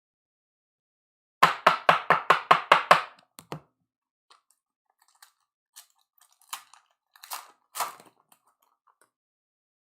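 Trading card pack and cards being handled. A quick, loud run of about eight sharp crinkling clicks comes about a second and a half in, followed by scattered softer clicks and rustles.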